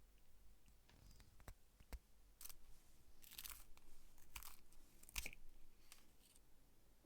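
Faint, irregular short scrapes and a few light clicks of hand work on small metal parts, with the busiest scraping in the middle.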